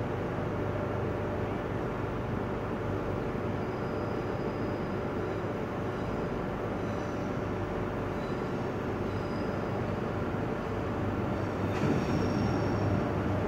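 ICE high-speed train rolling slowly into a station platform, a steady rumble that grows a little louder near the end as it draws close, with a few faint, brief high squeals from the wheels or brakes.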